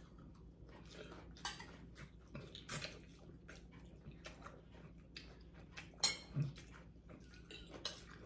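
Metal spoons clinking against bowls and noodles being slurped and chewed, in scattered short clicks and brief bursts, the loudest about six seconds in.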